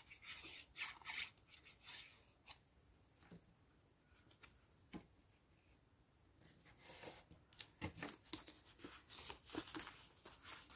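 Faint rustling and rubbing of cardstock as a paper decal is pressed down and the card is handled, with a few soft clicks. It goes nearly quiet midway, and the handling picks up again about seven seconds in.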